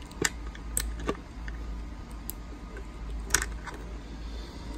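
Small steel socket and extension clinking against a driver handle and a plastic socket-set case as a 10 mm socket is fitted: a few sharp metallic clicks, one shortly after the start, two around a second in and another about three and a half seconds in.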